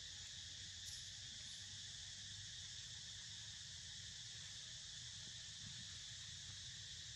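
Steady chorus of insects, a continuous high shrill hum that does not change, over a faint low rumble.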